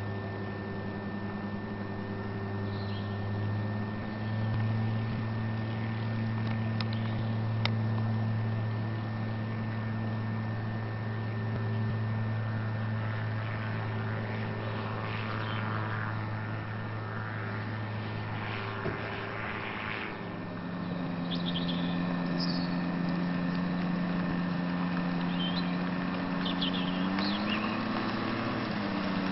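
Gyrocopter engine and propeller running steadily. About two-thirds of the way through the note shifts, and near the end it briefly rises and falls back.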